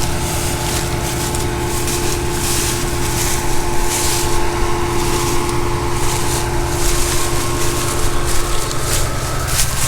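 John Deere combine harvester running steadily while harvesting corn: a constant machine drone with a steady whine over it.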